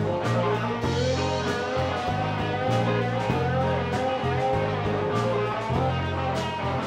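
Live band playing an instrumental passage: electric guitars over bass guitar and drums, with regular drum hits under steady bass notes.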